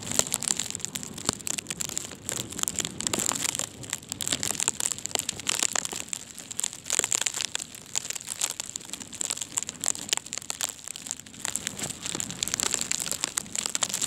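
Wind-driven sleet and snow pelting the phone, heard as a dense, irregular crackle of ticks on the microphone.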